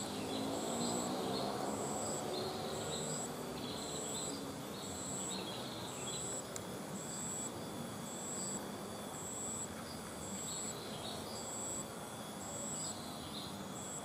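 Insect chirping in short, very high, evenly spaced pulses, about three every two seconds. Short, irregular, somewhat lower chirps and a steady low background hum run under it.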